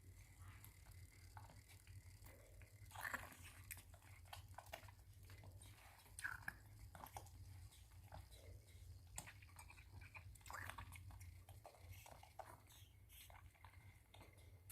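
Faint, irregular clicking mouth sounds of a baby monkey drinking milk, with a few short voice-like sounds.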